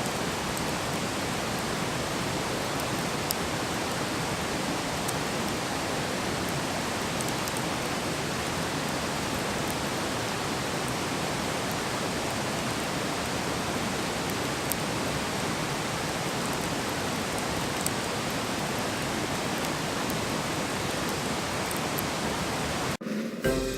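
Wood fire burning with a steady, even rushing hiss and a few faint, sharp crackling pops. Near the end it cuts off abruptly and music begins.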